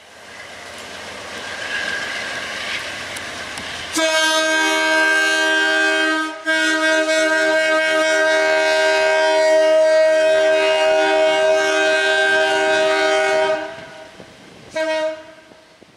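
Hartford Line commuter train approaching, its rumble growing, then sounding its multi-note horn: a blast about four seconds in, running into one held about seven seconds, and a short toot near the end.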